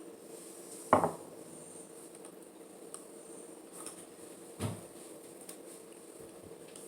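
Plastic Lego pieces knocking and clicking as they are handled and pressed together: one sharp knock about a second in, a softer one a few seconds later, and a few small clicks, over a faint steady hum.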